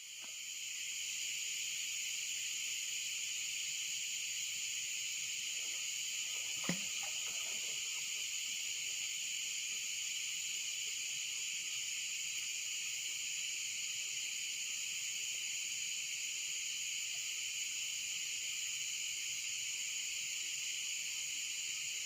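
A steady insect chorus, a constant high-pitched buzzing in two even bands. A single short click comes about seven seconds in.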